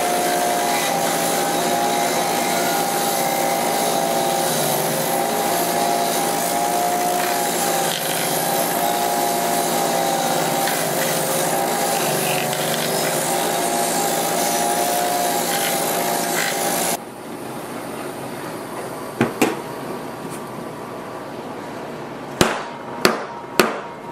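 Bench grinder running with a steel bayonet blade pressed against the wheel: a steady grinding hiss over a wavering hum. It stops abruptly about two-thirds of the way in, followed by a few sharp metal knocks near the end.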